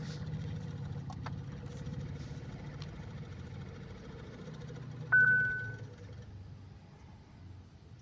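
Hyundai Creta's electronic warning alarm giving one short, clear beep about five seconds in, over a low steady hum. It is a sign of the car's malfunction warning.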